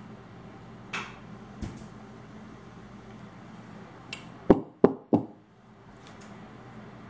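Ceramic loaf pan full of batter knocked down on the counter three times in quick succession, settling the batter in the pan. Before that, a lighter clink and a knock as the metal mixing bowl is set aside.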